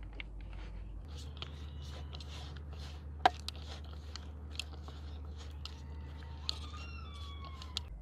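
Raw quail pieces squished and turned by a gloved hand in a wet spice marinade in a bowl: irregular soft squelches and small clicks, with one sharper click about three seconds in.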